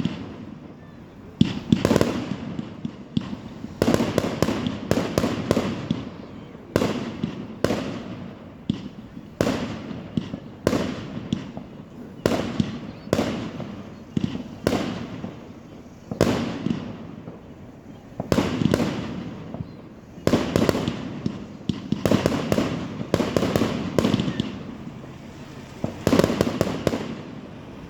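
Fireworks exploding in an irregular string of sharp bangs, often several in quick succession, each followed by a rumbling echo that dies away.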